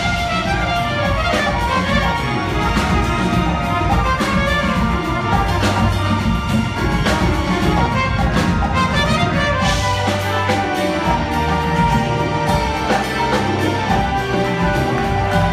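A jazz-fusion band and full orchestra playing together live, with drum hits over many sustained pitched parts.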